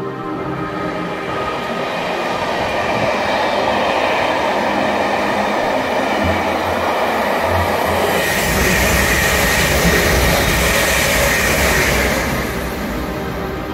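Class 86 electric locomotive and its train of Pullman coaches passing on a far track, a steady rumble and wheel noise building over the first few seconds. About eight seconds in, a Class 350 electric multiple unit passes close by, a louder rush of wheel, rail and motor noise that eases off near the end.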